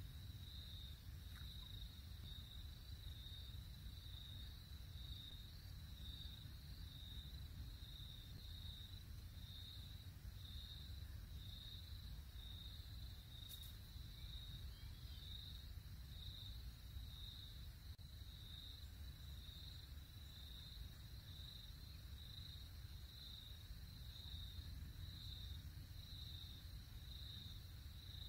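An insect chirping in a steady pulsing rhythm, high-pitched, over a low steady rumble of outdoor ambience, with one sharp click about halfway through.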